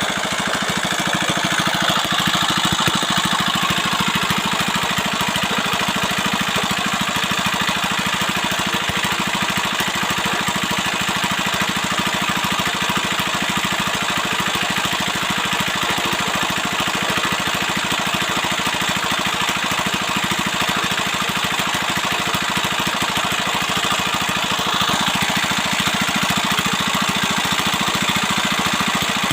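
Repaired 175F single-cylinder four-stroke diesel engine running steadily, with a rapid even firing beat.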